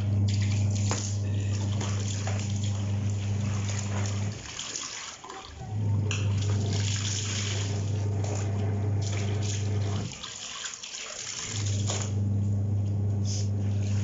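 Clothes being swished and rinsed by hand in a basin as a hose runs water into it: steady splashing and pouring. Under it an electric washing machine's motor hums in runs of about four seconds, with pauses of a second or so between, as the wash agitator stops and restarts.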